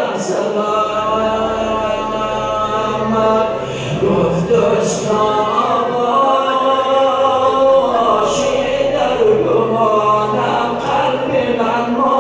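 A man chanting a Shia Muharram elegy (rawza) unaccompanied, in the Hazaragi melodic style of Bamiyan, in long, held, wavering lines.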